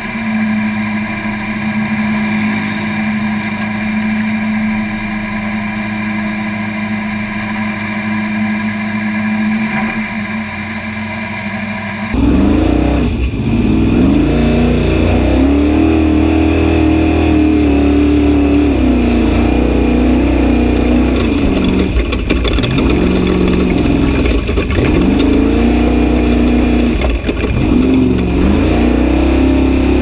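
Off-road race truck engine running hard on a dirt course. For the first twelve seconds it is a steady drone. Then, after a sudden change, it comes in louder and heavier, with the revs climbing and dropping again and again.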